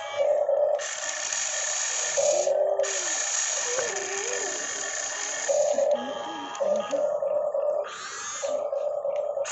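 Radio-controlled model excavator working: its motors give a steady whine that starts and stops several times, alternating with long stretches of hiss.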